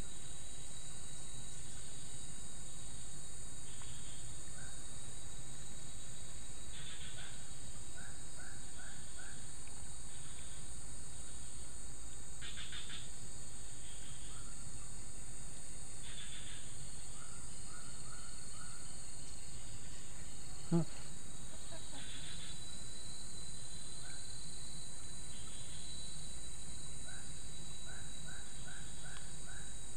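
Outdoor insect drone: a steady high buzz of crickets or cicadas with a constant thin whine over it. A bird calls now and then in short runs of four or five quick notes. One sharp click comes about two-thirds of the way through.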